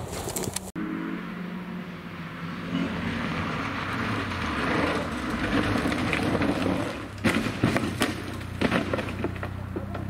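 Rally car engine running as the hatchback slides sideways on loose gravel, stones and tyres hissing, then a cluster of sharp crashing impacts from about seven seconds in as the car rolls over onto its roof, the engine still running afterwards.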